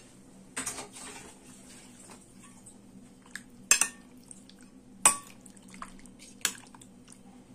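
Metal spoon clinking against a glass serving bowl while stirring bulgur dumplings into tomato sauce: a few sharp clinks about a second or so apart, with softer wet scrapes between.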